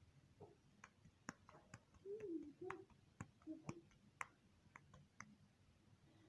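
Faint, scattered wet clicks and squelches of oiled hands squeezing and patting a soft mashed potato and egg mixture into patties, with a few faint short pitched sounds about two to four seconds in.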